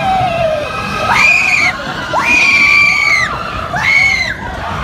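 Roller-coaster riders screaming: three long, high-pitched held screams in a row, each ending in a falling pitch. The coaster train rumbles low underneath.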